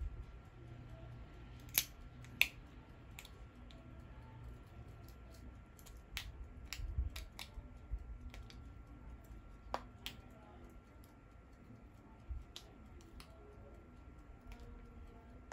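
Irregular small clicks and taps of a wristwatch being handled, with two sharper clicks about two seconds in, over a faint low hum.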